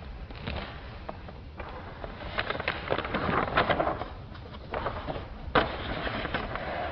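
Scattered clicks, knocks and rustling, busiest in the middle, with one sharp click about five and a half seconds in.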